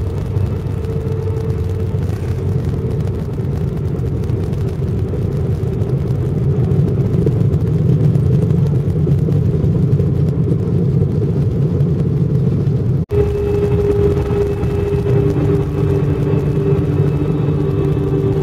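Cabin noise of a jet airliner rolling out on the runway after touchdown: the engines and the wheels on the runway make a steady low rumble, which swells for a few seconds in the middle. About 13 seconds in the sound cuts out for an instant, and after that steady humming engine tones stand out above the rumble.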